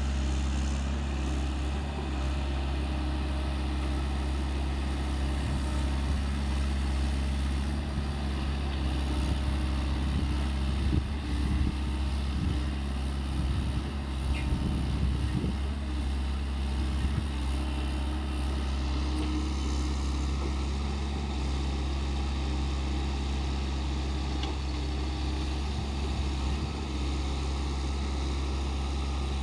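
SANY SY75C mini excavator's diesel engine running steadily while it digs, with a stretch of irregular knocks and thuds in the middle.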